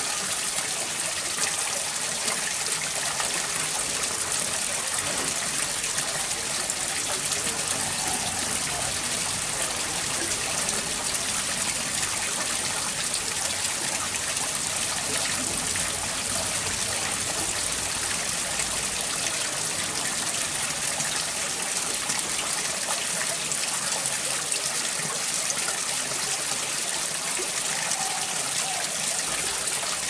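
Steady rush of running water, an even hiss with no break or change.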